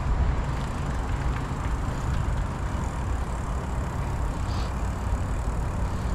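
Nukeproof Scout hardtail mountain bike rolling along a trail: a steady, even rumble of tyres and bike noise with no distinct knocks.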